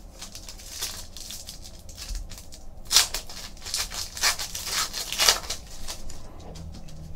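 Foil wrapper of a Panini Contenders football card pack crinkling in the hands as it is opened and the cards are slid out: a string of short, sharp rustles, loudest about three seconds in.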